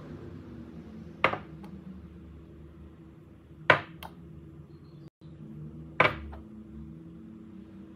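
Three sharp clinks on a stainless steel mixing bowl while spices are added, about two and a half seconds apart, each ringing briefly, over a steady low hum.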